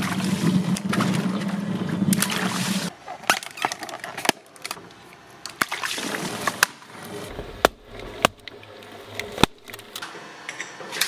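Twin-shaft shredder tearing open a water balloon: water splashing over the cutters against the steady hum of the running machine for about three seconds. After that come several sharp balloon pops, spaced a second or so apart.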